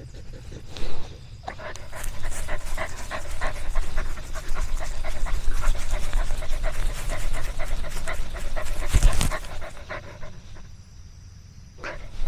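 A dog panting fast and steadily for several seconds. There is a short bump about a second in and another near the end.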